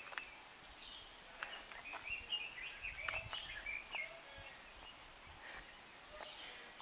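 Several birds chirping and calling in short, quick notes, busiest in the middle and thinning out near the end.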